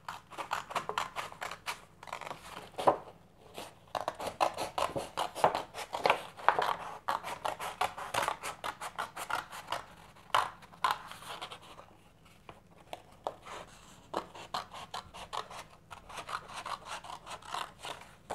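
Scissors cutting through thick paper along a pencilled line, a long run of short snips with a brief lull about two-thirds of the way through.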